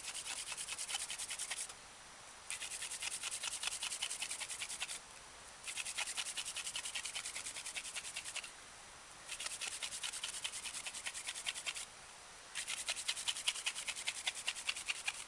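Wooden hand-drill spindle spun back and forth between the palms against a wooden hearth board, grinding in quick rhythmic strokes. The strokes come in runs of two to three seconds with short pauses as the hands go back to the top of the spindle, and the last run is the loudest. This is the hard final spinning to form an ember, and it produces a coal.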